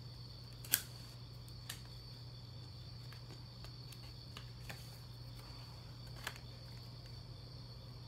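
Handling noise from a sports-card package being opened by hand: a sharp click about a second in, then a few fainter clicks and taps, over a faint steady hum.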